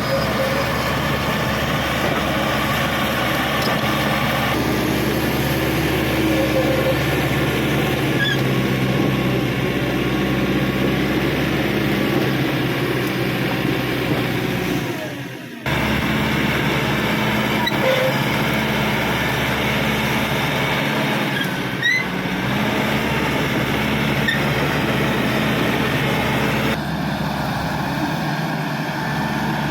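Caterpillar D5K XL bulldozer's diesel engine running steadily under load as the machine works. The sound fades and cuts off abruptly about halfway through, then picks up again at the same level.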